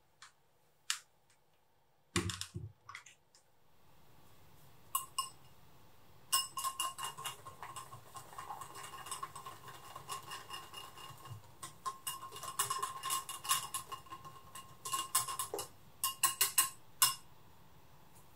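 A wire whisk clinks rapidly against a glass mixing bowl while stirring meringue into egg-yolk pancake batter, with a ringing tone from the glass. The whisking comes in two long bouts with a short pause between them. A few separate clicks and a dull knock come before it.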